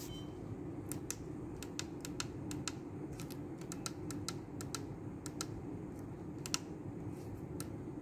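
Irregular run of about two dozen sharp clicks as the push-buttons on a Panasonic MCDHT3520 servo drive's front keypad are pressed to step through its menus, over a steady low background hum.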